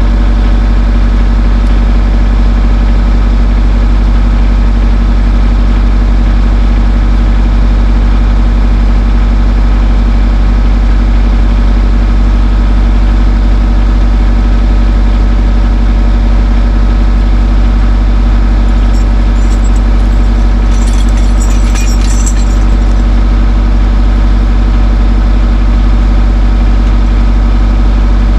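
Skid steer engine running steadily at a constant speed. A short flurry of high clicks and squeaks comes about twenty seconds in.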